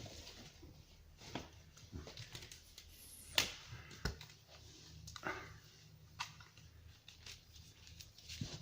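Objects being handled and pulled out of packaging: scattered light clicks and knocks, with one sharper click about three and a half seconds in.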